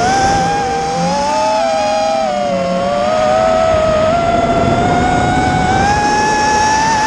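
Electric motors of an FPV quadcopter drone whining as it flies. Two close pitches drift up and down slowly with the throttle.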